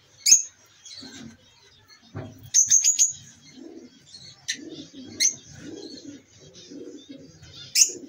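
Lovebirds in a breeding cage giving sharp, high chirps, a quick run of four about two and a half seconds in and single calls before and after. Softer, lower sounds repeat underneath.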